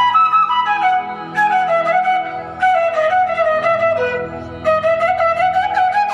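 Background music led by a flute playing a gliding melody over a soft low drone.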